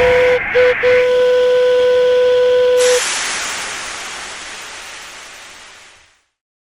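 Cartoon sound effect: a steady whistle-like tone, broken twice very briefly near the start, cuts off about three seconds in. A hiss takes over and fades away over the next three seconds.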